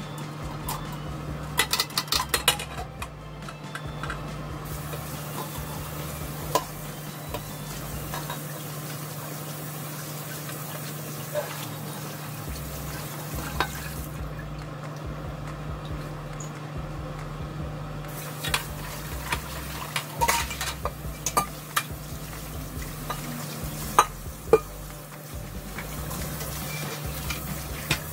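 Tap water running into a kitchen sink while a black cooking pot and its glass lid are scrubbed with a sponge. Scattered clinks and knocks of the lid and pot against the sink, in clusters, the sharpest near the end.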